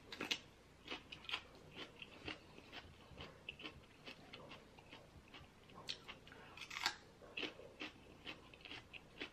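Close-up mouth sounds of chewing and biting into a piece of green pepper: a run of faint crisp crunches and wet clicks, the sharpest about a third of a second in and again just before 7 s.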